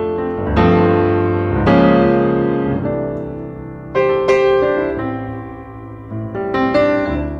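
Piano music: notes and chords struck every second or two, each ringing out and fading.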